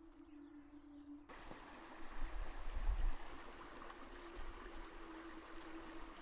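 Steady rush of flowing water, like a stream, starting abruptly about a second in, with a low steady held tone running underneath and a few low rumbles around two to three seconds in.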